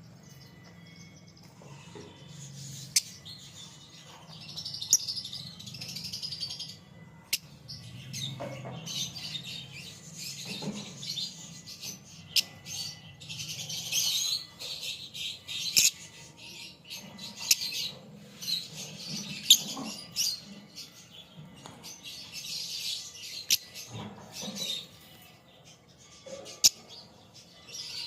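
Lovebirds chattering in repeated bouts of high, rapid chirps, with a few sharp clicks between the bouts.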